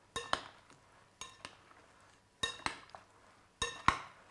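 Metal spoon clinking against a glass mixing bowl while stirring chopped vegetables in marinade: short ringing clinks, mostly in pairs, about once a second.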